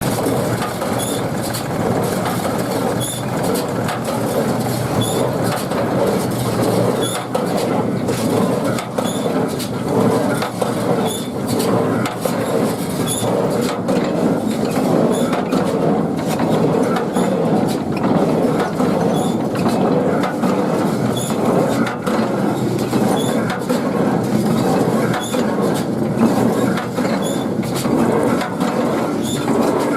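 Steady mechanical running noise of a tractor-drawn pick-up baler at work, with a faint tick repeating about once a second.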